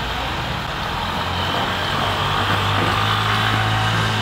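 A heavy vehicle running with a steady low hum, getting slightly louder about halfway through.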